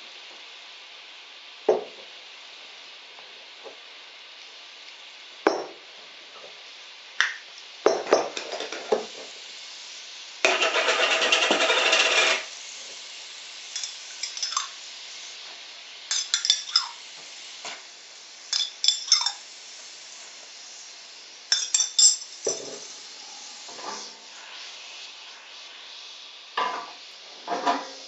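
Metal spoons clinking and tapping against small glass jars and a frying pan as seasonings are spooned in, a dozen or so separate clinks, some ringing briefly, over a steady hiss. About ten seconds in there is a louder two-second rush of noise.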